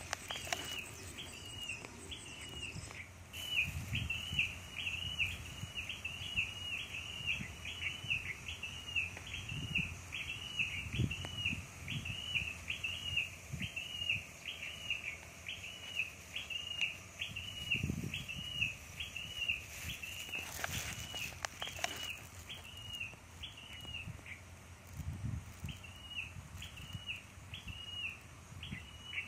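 A bird repeating a short, sharp chirp over and over, two to three a second, with a brief pause late on, over low swishing of water as a person wades through a river.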